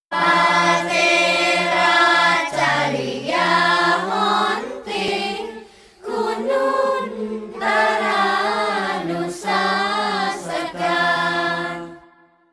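Choir singing in two sustained phrases, with a brief break about six seconds in, fading out near the end.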